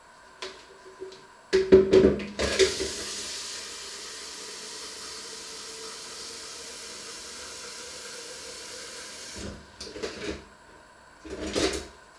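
Kitchen tap running steadily for about seven seconds, filling a plastic measuring jug. Just before it starts there is a clatter of dishes being handled, and a few knocks follow after it is turned off.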